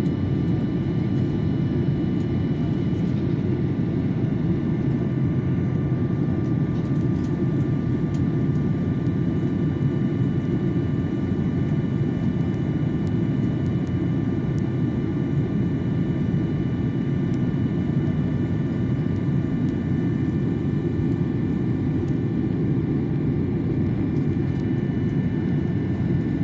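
Jet airliner cabin noise on descent for landing: a steady low rush of engines and airflow, with a few faint steady whining tones above it.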